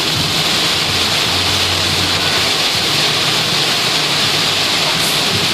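Torrential rain pounding on a moving car, heard from inside the cabin as a steady, loud hiss, with a low hum of the engine and tyres underneath.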